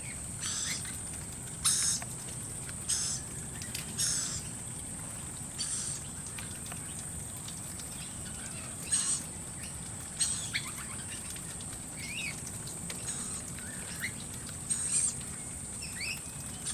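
Noisy miners and other wild birds giving scattered short, sharp calls and small chirps, a few seconds apart, over a steady high-pitched tone.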